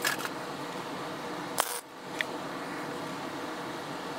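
Wire-feed (MIG) welder arc crackling steadily while tack welding a steel bolt onto a swingarm bearing. The arc breaks off briefly a little under two seconds in, then strikes again.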